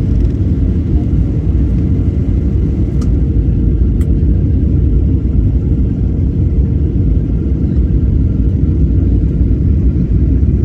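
Steady low rumble of an airliner's engines and airflow inside the cabin, with a faint steady hum and two faint clicks about three and four seconds in.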